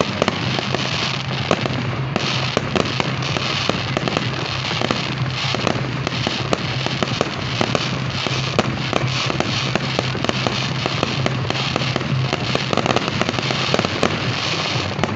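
Fireworks display going off overhead: aerial shells bursting into glittering crackle effects, a dense rapid snapping cut through by many sharp pops and bangs.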